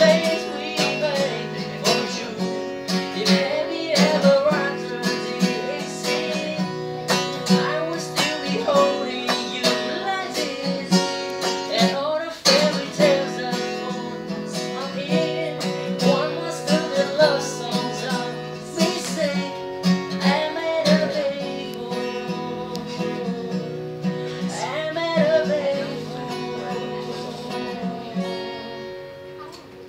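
Music: an acoustic guitar strumming and picking a pop song.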